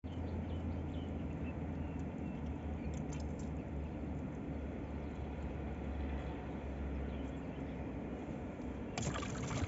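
Steady low rumble of wind on the microphone, with a few faint clicks as a stone and fishing net are handled and a short rustling burst near the end.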